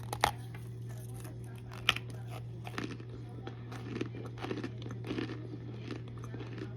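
Hard cornstarch being bitten and crunched: two sharp snaps about a second and a half apart near the start, then a run of dense crackling crunches in the middle, over a steady low hum.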